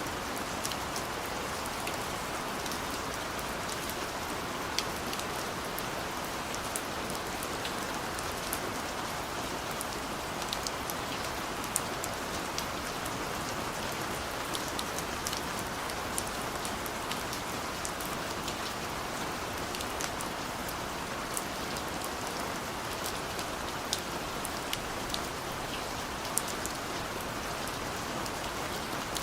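Steady rain falling, an even hiss with scattered sharp drop hits.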